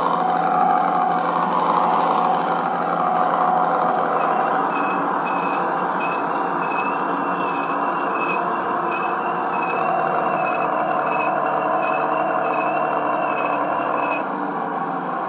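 LGB garden-railway model of a VT 98 railbus running along its track, with steady motor, gear and wheel noise. From about four seconds in until near the end, a high beep repeats about twice a second.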